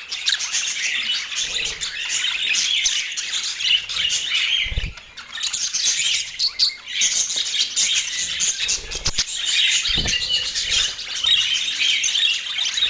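Budgerigars chattering and warbling continuously in a dense run of high chirps, with a short lull about five seconds in and a couple of brief low thumps.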